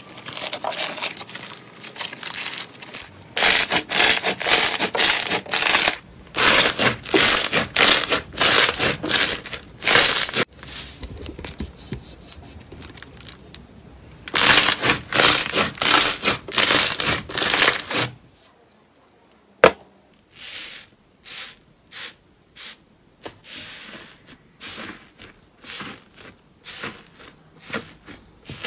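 Slime being squeezed, poked and stretched by hand in a run of loud presses and pulls. About two-thirds of the way through it goes almost quiet, a single sharp click sounds, then shorter, softer presses follow about one a second.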